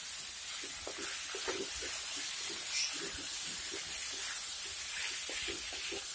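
Potato and ridge gourd pieces sizzling in oil in a kadai while a wooden spatula stirs them, with many soft, irregular scrapes and knocks of the spatula against the pan over a steady hiss.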